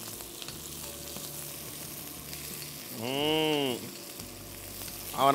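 Shallots, garlic and curry leaves sizzling steadily as they fry in hot oil in a kadai, stirred with a wooden spatula. About three seconds in comes a short drawn-out voice sound whose pitch rises and then falls.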